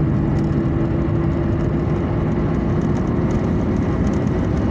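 Steady road and engine noise of a car driving, heard from inside the cabin, with a faint steady hum that fades out about three seconds in.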